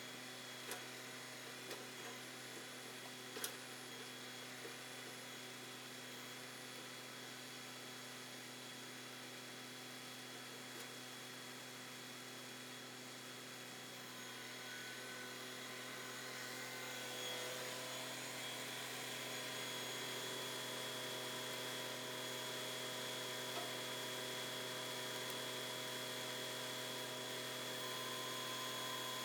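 LS XR3135 compact tractor's diesel engine running steadily, with a few light knocks in the first few seconds; the engine grows louder about two-thirds of the way through.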